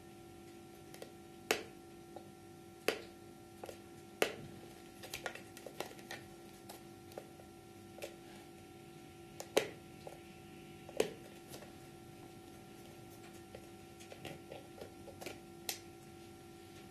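Irregular clicks and light knocks of hard plastic skull-model pieces being handled and fitted together or pulled apart, over a faint steady hum.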